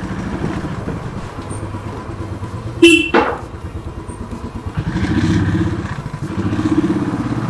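Motorcycle engine running at low speed, picking up revs twice as the bike accelerates along the lane. There is a short, loud horn beep about three seconds in.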